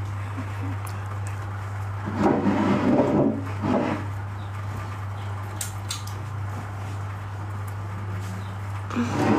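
A steady low hum, with bumps and rustling from someone moving about close to the microphone: a cluster about two to four seconds in and a louder one near the end.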